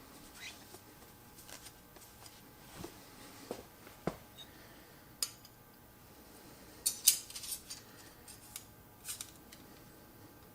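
Scattered light metallic clicks and knocks of a bench plane's steel parts and tools being handled on a workbench, with a quick run of sharp clicks about seven seconds in.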